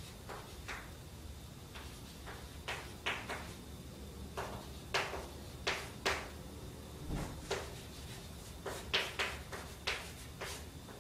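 Chalk tapping and scratching on a chalkboard as equations are written: irregular short taps, some in quick clusters of two or three.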